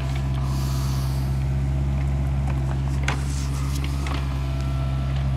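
Mini excavator's diesel engine running with a steady low drone, with a short knock about three seconds in as the machine works.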